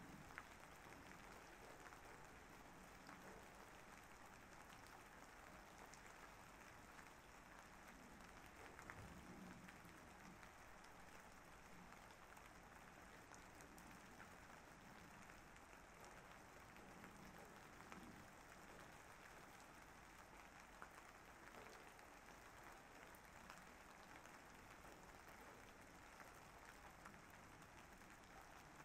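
Faint, steady rain falling, an even hiss with scattered ticks of single drops.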